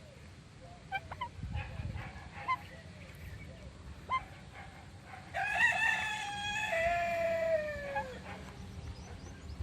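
A few short bird chirps, then one long bird call of about two and a half seconds starting about halfway in, held and then sliding down in pitch at its end.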